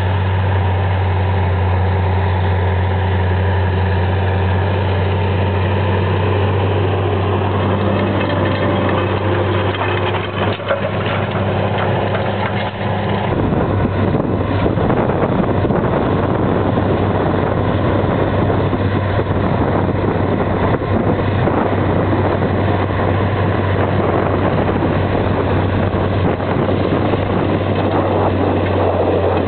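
Versatile four-wheel-drive tractor's diesel engine working under load, pulling a Väderstad TopDown cultivator-seeder: a steady, deep drone. About halfway through the sound turns rougher and noisier.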